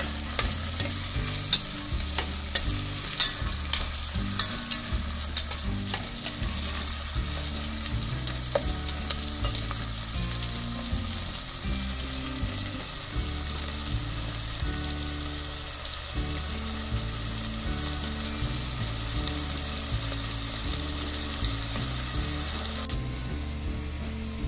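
Freshly added chopped onions sizzling as they fry in hot oil in a steel pot. A steel spoon scrapes and clinks against the pot as they are stirred, mostly in the first half. The sizzle drops off near the end.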